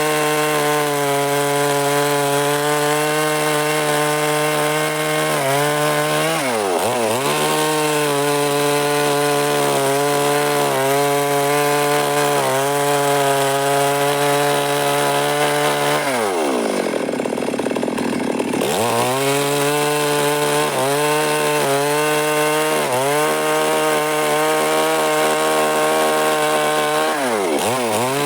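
Stihl MS 382 two-stroke chainsaw with a 24-inch bar running at high revs while cutting wood. Its engine note holds steady but dips in pitch and recovers about seven seconds in, drops lower for a couple of seconds a little past the middle, and dips again near the end.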